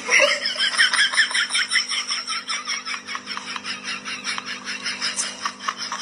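High-pitched giggling laughter, a rapid unbroken run of even 'ha-ha' pulses at about five a second, over a faint steady hum.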